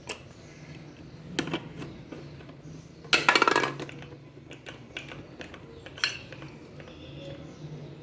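Hard plastic toy pieces knocking and clattering together: scattered clicks, with the loudest rattling clatter about three seconds in lasting about half a second.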